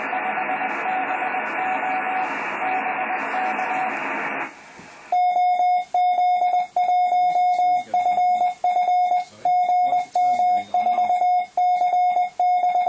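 Recorded amateur microwave Morse-code (CW) signals received by reflection off aircraft: a keyed tone heard through receiver hiss, then, after a short break about four and a half seconds in, a second recording in which the keyed Morse tone is much louder and clearer.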